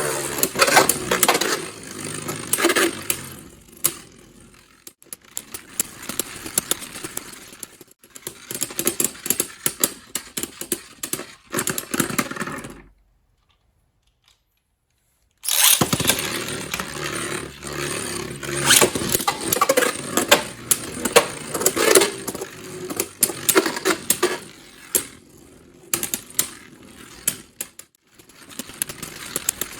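Beyblade Burst tops spinning in a plastic stadium: a busy whirring and scraping with many sharp clacks as they strike each other and the walls. About halfway through the sound cuts out completely for a couple of seconds, then a new battle starts abruptly and carries on with the same whirring and clashing.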